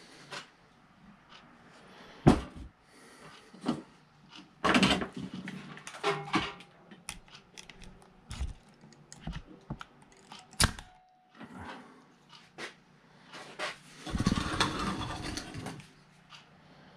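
Tools and a wooden workpiece being handled on a workbench: a series of sharp knocks and clicks, with a longer rustling scrape about fourteen seconds in.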